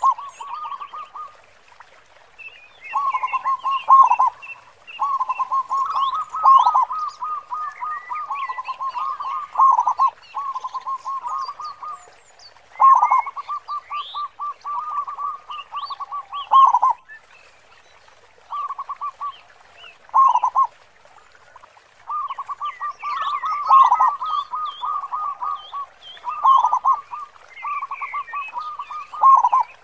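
Zebra dove (perkutut) cooing over and over in bouts of rapid rolling notes, a local bird with a big, deep 'khong' voice. Smaller birds chirp faintly and high-pitched in the background.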